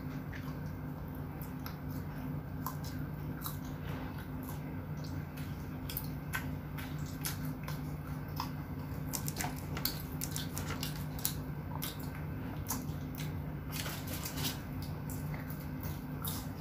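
A child chewing and biting french fries and fried chicken: scattered small crunches and mouth clicks over a steady low hum.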